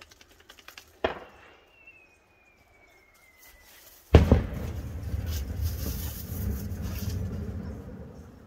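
A firework rocket goes off. There is a sharp crack about a second in, then a thin whistle falling in pitch for a couple of seconds. About four seconds in comes a loud bang, followed by a rumble that slowly fades away.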